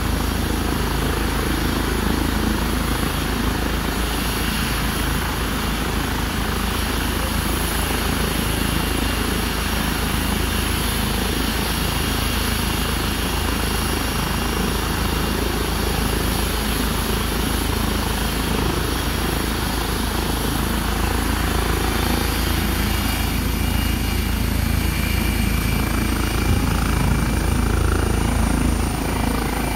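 Airbus H135 (EC135) air ambulance helicopter running on the ground before lift-off: a steady rotor beat under a high turbine whine, growing slightly louder in the last few seconds.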